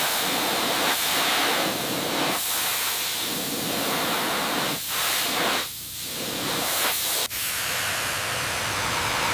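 Steady, loud hissing spray from a nozzle, dipping briefly a few times and cutting out for an instant about seven seconds in.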